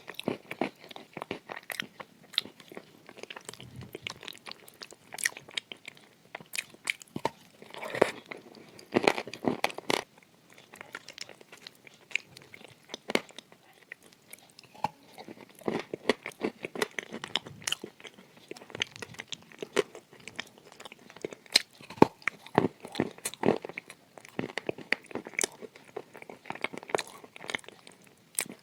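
Close-miked crunching and chewing of dry edible clay shaped as shortbread cookies: irregular clusters of sharp crackles as pieces are bitten and ground between the teeth.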